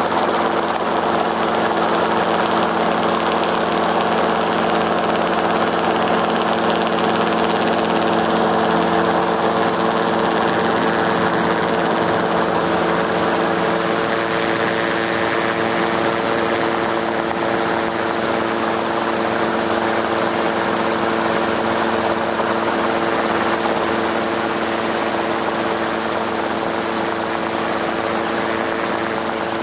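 Steady engine and rotor noise of a low-flying aircraft, heard from on board. A faint high whine wavers in pitch in the second half.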